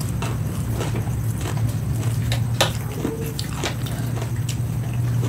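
Eating sounds: a hand mixing biryani rice on a plate and chewing, heard as scattered soft clicks and smacks over a steady low hum.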